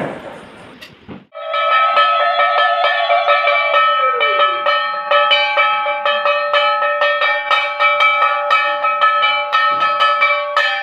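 Brass puja hand bell (ghanti) rung rapidly and without pause, a steady ringing with fast clapper strikes that starts about a second in, as the puja begins.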